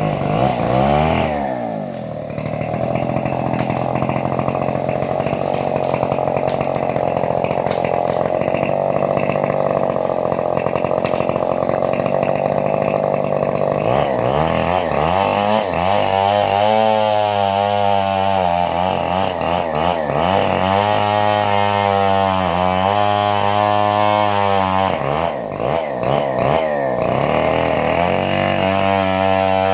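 Homemade machine-driven bandsaw running loud and steady while cutting trembesi (rain tree) wood. About halfway through, its pitch starts dipping and rising again and again.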